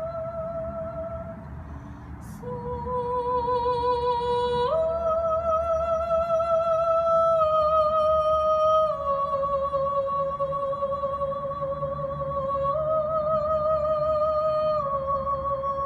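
Background music: a slow melody of long held notes with a slight waver, stepping up and down between pitches every few seconds.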